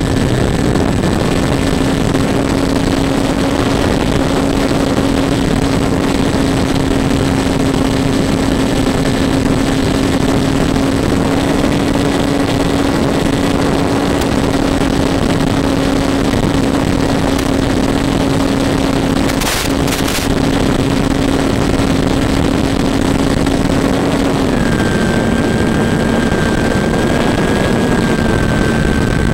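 Radio-controlled FPV airplane's motor and propeller running steadily in flight, with heavy wind rush over the onboard microphone. Two brief crackles come around two-thirds of the way in, and near the end the motor's pitch drops slightly as the throttle is eased.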